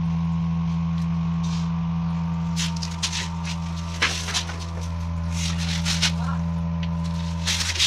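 Scattered knocks and scrapes of hand work on a concrete wall around a pipe fitting, turning into quick hammer strikes near the end, over a steady low hum.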